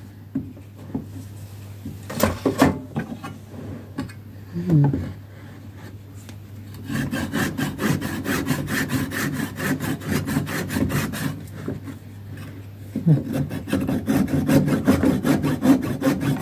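Small backsaw (a London pattern dovetail saw) cutting through a turned wooden snowman at the neck in quick, even rasping strokes. After a few quiet seconds with some knocks, the sawing starts about seven seconds in, pauses briefly near twelve seconds, then carries on.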